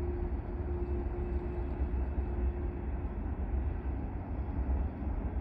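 Distant Alaska Railroad train crossing a steel truss bridge: a steady low rumble, with a faint steady hum that fades out about three seconds in.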